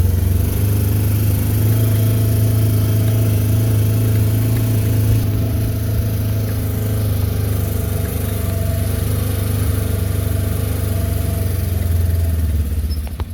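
Vehicle engine running steadily at idle, tried out just after a new belt was fitted. The sound falls away near the end.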